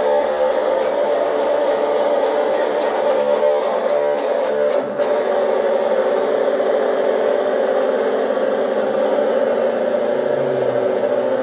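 Electric guitar played through distortion, with a high ticking pulse of about four ticks a second alongside it. About five seconds in the ticking stops and a chord is left ringing, held steady.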